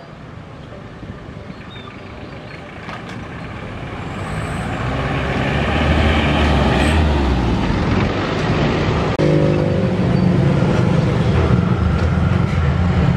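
A Mitsubishi pickup truck's engine running as it drives over the level crossing and passes close by, growing louder to its loudest about six to seven seconds in. A steady engine hum carries on after that.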